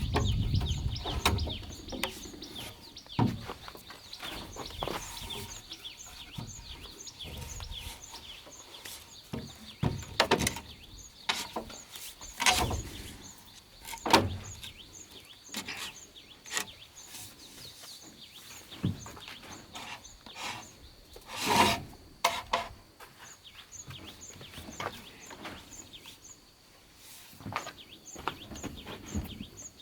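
Irregular knocks and short scrapes of wood or bamboo being handled and worked, the loudest about a third of the way in and again about two-thirds in. Behind them runs a steady high hiss with a high chirp repeating about twice a second.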